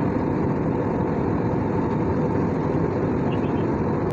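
Steady rushing cabin noise of a jet airliner in cruise flight, heard inside the cabin by the window over the wing-mounted engine.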